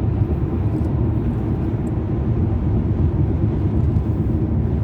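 Steady low road and engine rumble inside a moving car.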